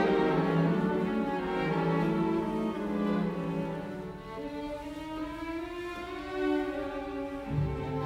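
Background music: slow, long-held notes in several voices, with a lower note coming in near the end.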